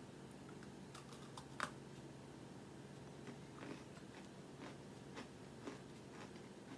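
A person biting into a crunchy Oreo Brookie-O sandwich cookie, with a sharp crunch about a second and a half in, then quiet chewing with a few faint crunches.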